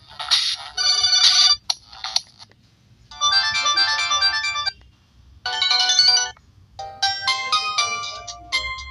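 Electronic ringtone melodies from a Samsung GT-E1195L-type feature phone's speaker. Four different tunes, each cut off after one or two seconds, with short pauses between them.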